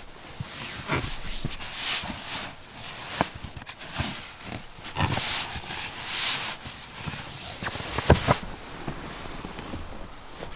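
The nylon shell of a down sleeping bag rustling and swishing in repeated bursts as it is folded and packed into a stuff sack, with a few soft knocks. The rustling stops about eight seconds in.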